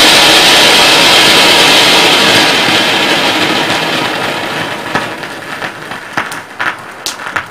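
Gudiya brand red Matka flowerpot, a clay-pot ground fountain firework, hissing loudly as it sprays sparks. The hiss fades from about halfway through as the fountain dies down, with a few sharp crackles near the end.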